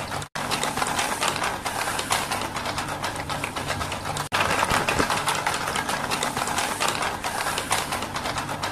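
Small battery-powered toy motor running a cardboard walking robot and its cart, a steady whir over a fast, dense clatter of gears and crank linkage. The sound cuts out for an instant twice, near the start and about four seconds in.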